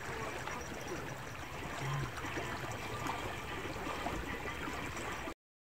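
Steady lakeshore ambience of water lapping against the stony shore, cutting off suddenly near the end.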